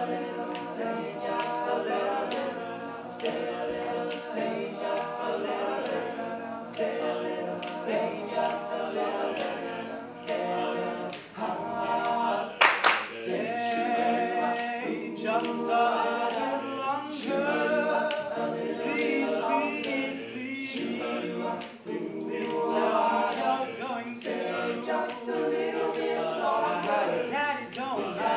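All-male a cappella group singing a song in close harmony, a lead voice over the backing voices, with a steady percussive beat under it. One sharp, loud hit about halfway through.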